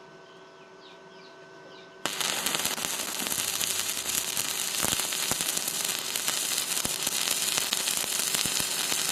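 Stick (shielded metal arc) welding: after a low steady hum, the arc is struck about two seconds in and burns with a loud, continuous, irregular crackle and sizzle.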